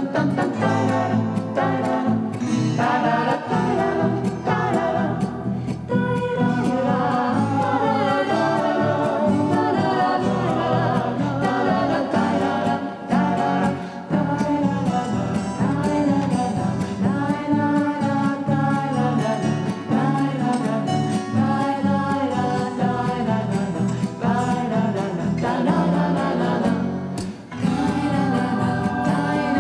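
Music with singing over guitar-like accompaniment, playing steadily as a backing track for a mime performance.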